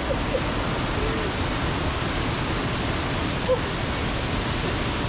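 Waterfall cascade rushing steadily, a dense, even roar of falling water with no breaks.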